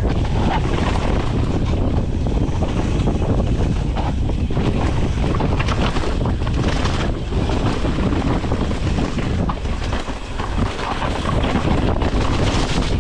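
Wind rushing over an action camera's microphone as a Rocky Mountain Altitude mountain bike rolls fast downhill, tyres crunching over gravel and rock and the bike rattling with many small clicks and knocks.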